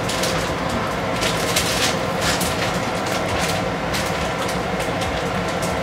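Spatula stirring and scraping thick keema curry in a frying pan, with irregular clacks and scrapes over a steady hum.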